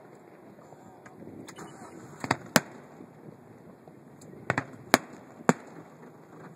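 Aerial fireworks shells bursting in sharp bangs: two or three about two and a half seconds in, then four more in quick succession between about four and a half and five and a half seconds in.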